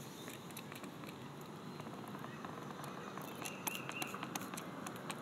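A plastic trigger spray bottle being squeezed: a scattering of small clicks and spritzes, thickest about three to four seconds in, over quiet outdoor background.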